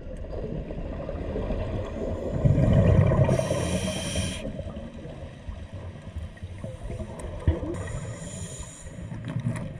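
A scuba diver breathing underwater through a regulator: the bubbling rumble of an exhale swells about two and a half seconds in, followed by the hiss of an inhale, and a second inhale hisses near the end.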